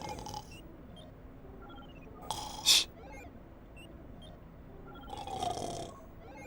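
A sleeping Teletubby snoring: three breathy snores about two and a half seconds apart, the middle one loudest and sharpest, over faint background music.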